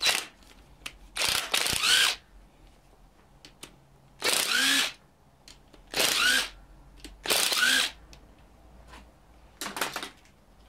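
Cordless drill-driver run in about six short bursts, each spinning up with a rising whine, as it drives out bolts at the camshaft timing-chain sprockets.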